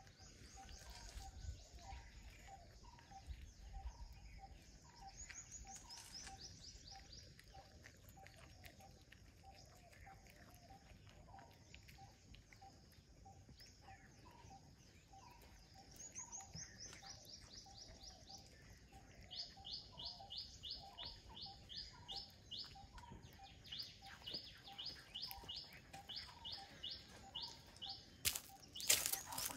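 Faint songbirds chirping, with phrases of quick high notes that come thicker and faster in the second half, over a steady row of softer repeated calls. A brief loud noise near the end.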